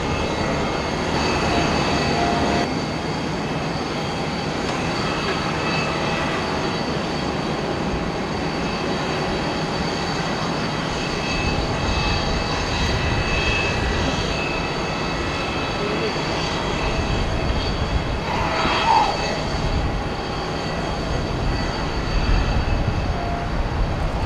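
Boeing 767-300 airliner's twin turbofan engines running at low taxi thrust: a steady rush with a high whine of several tones, the low rumble swelling a little near the end.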